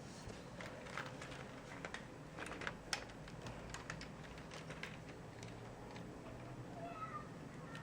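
Scattered, irregular light clicks and taps, with a few faint short squeaky glides near the end.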